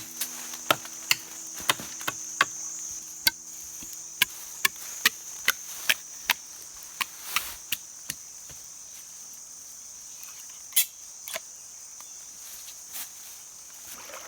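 Forest insects keep up a steady high-pitched buzz, broken by a run of sharp, irregular knocks, most of them in the first half, with one more loud knock later on.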